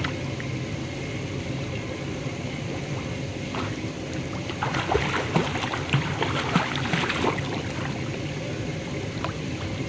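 Pool water splashing as a child swims face-down with a snorkel, a run of choppy splashes about halfway through as his strokes and kicks come near, over a steady background rush.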